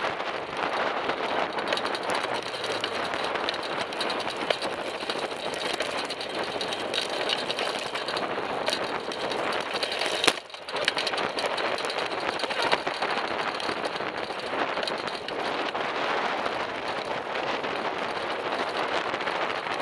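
Steady rushing wind and road noise on a camera riding on a moving bicycle, with motor traffic passing alongside. About halfway through there is a sharp knock, then a brief drop in the sound.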